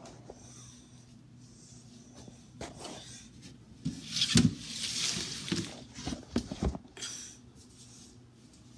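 Cleaning and handling noises inside a refrigerator: several knocks and clatters of shelves or drawers, and a stretch of wiping or rubbing about four seconds in, over a steady low hum.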